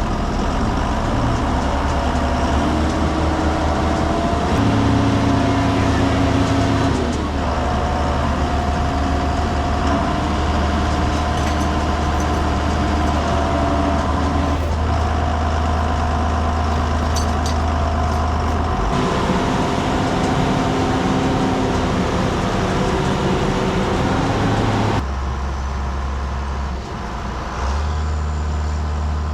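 Heavy diesel farm machinery engines running steadily under load, the pitch stepping up and down. The sound changes abruptly twice in the later part.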